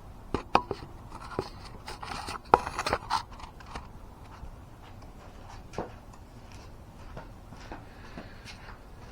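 Parts of a floor jack being handled during assembly: a quick run of sharp clicks and knocks with some scraping and rustling over the first three to four seconds, then a few scattered light ticks.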